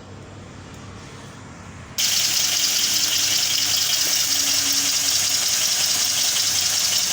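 Small homemade steam engine starting up about two seconds in: a sudden, loud, steady hiss of steam as the valve and piston run.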